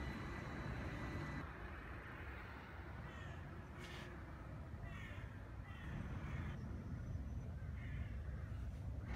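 A steady high electrical whine from the standing trams stops about a second and a half in. After that a bird gives a run of short calls, roughly one a second, over a low rumble.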